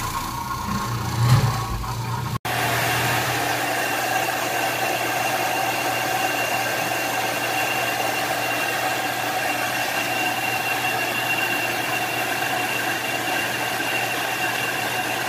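Carpet-cleaning machinery running. An uneven low hum for the first couple of seconds cuts out briefly about two and a half seconds in, then gives way to a steady whine with several fixed tones.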